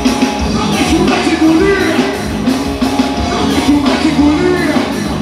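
Rock music with a singer over a steady drum beat.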